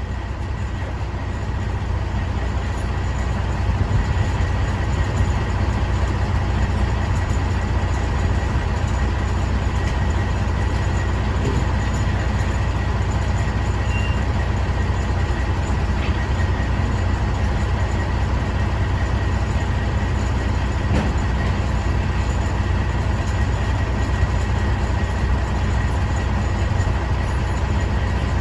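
Semi-truck diesel engine running steadily: a constant low rumble that builds slightly over the first few seconds and then holds level.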